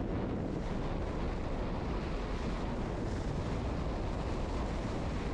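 Steady wind buffeting the microphone, over sea waves breaking and splashing against a stone seawall.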